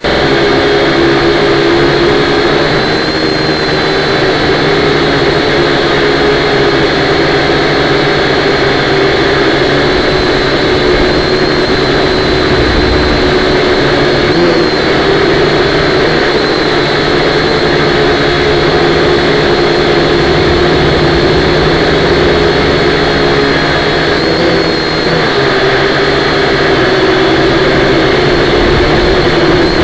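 Quadcopter drone's electric motors and propellers buzzing steadily, picked up by the drone's own onboard camera, with a slight waver in pitch now and then as it manoeuvres.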